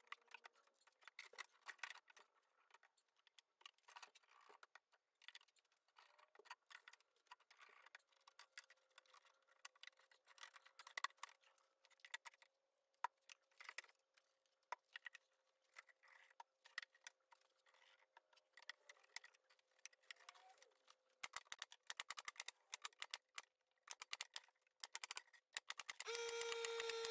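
Near silence broken by faint scattered clicks and taps as glued strips of barnwood are handled and pressed into place in a wooden shelf. Near the end a louder steady hum starts.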